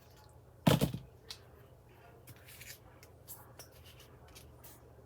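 Paper and craft materials being handled at a work table: one sharp crinkling rustle about a second in, then light scattered rustles and small taps.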